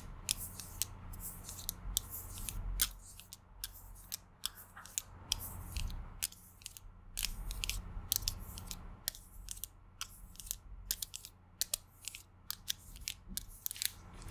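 Long acrylic fingernails clicking and tapping on a hard plastic object held close to the microphone: an irregular run of sharp little clicks, several a second.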